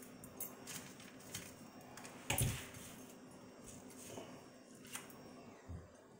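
Ceramic subway tiles clicking and knocking as they are handled and set on the backsplash: a scatter of short taps, with a louder dull thump about two and a half seconds in.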